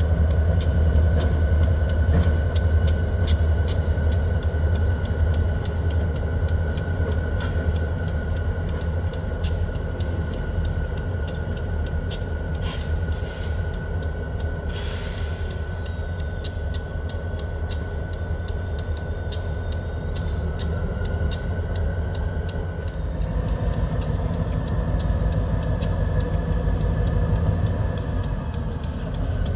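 Diesel locomotives running as they move slowly away along the track: a steady deep engine rumble with a thin high whine over it. About 23 seconds in the engine sound grows fuller and a little louder.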